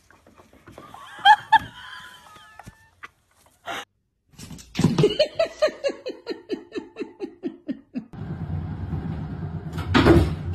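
A person laughing in a long run of quick ha's that fall in pitch, then a steady low rumble with one loud knock near the end.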